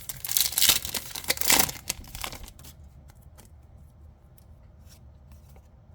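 A foil booster-pack wrapper being torn open and crinkled for about two and a half seconds, followed by a few faint clicks.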